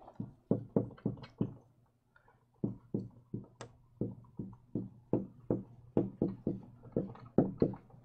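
Dry-erase marker writing on a whiteboard: a quick run of short taps and strokes as a line of handwriting goes up, about three to four a second. There is a pause of about a second roughly two seconds in.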